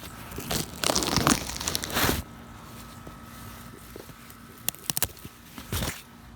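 Rustling, crinkling noise in a couple of bursts, the longest about a second in, with a few sharp clicks near the middle.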